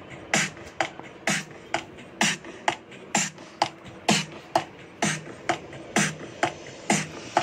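Background music made mostly of a sparse drum beat: a low kick and a sharp snare-like hit alternating in an even rhythm, about two hits a second.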